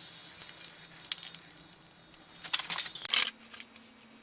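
Metal bike drivetrain parts clinking and jingling as they are handled, with a burst of clinks from about two and a half to three and a half seconds in.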